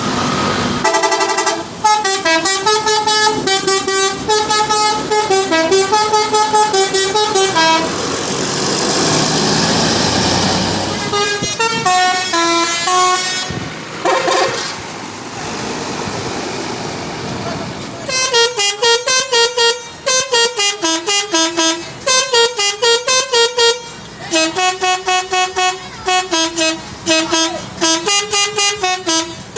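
Bus telolet horn, a multi-trumpet air horn playing quick melodic tunes of rapid pulsing notes, in several long bursts. A stretch of steady noise with no tune fills a gap about eight to eleven seconds in.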